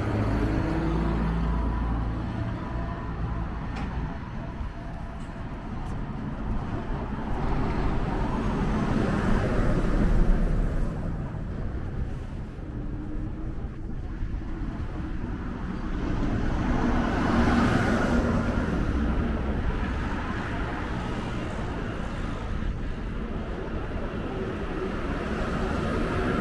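Road traffic: cars passing one after another, each swelling and fading away, the loudest about ten seconds in and another around seventeen seconds.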